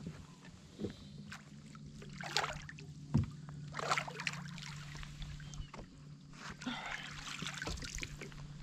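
A hooked bass splashing at the surface beside a plastic fishing kayak as it is brought alongside, with several short splashes and two sharp knocks on the hull, the second the loudest, over a steady low hum.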